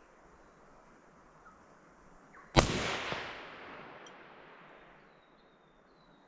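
A single hunting rifle shot about two and a half seconds in, its echo fading over about two seconds: the shot that dropped a red stag.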